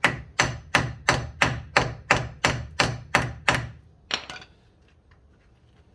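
Hammer blows on steel: eleven sharp, evenly spaced strikes at about three a second, then two more near the end, driving a seized front drive shaft out of its wheel hub.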